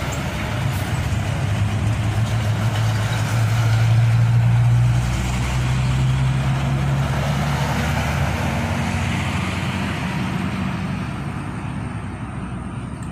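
Road traffic passing: a steady engine drone with tyre noise that swells to its loudest about four seconds in, then slowly fades.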